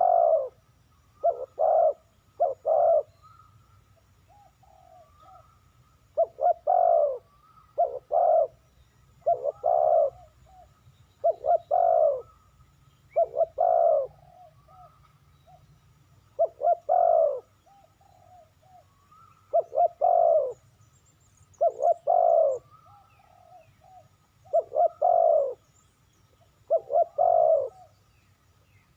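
Spotted dove cooing: short phrases of a few low coos, each ending in a longer falling note, repeated about every two seconds with a few longer gaps.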